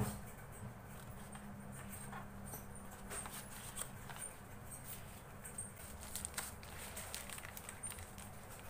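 Paper and cardboard phone-box inserts and a plastic-sleeved clear phone case being handled: light rustling with scattered small taps and clicks.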